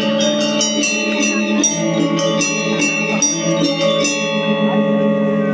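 Balinese gamelan playing: bronze metallophones and gongs struck in quick strokes over sustained, pulsing low tones. The fast high strokes stop about four seconds in, leaving the notes ringing.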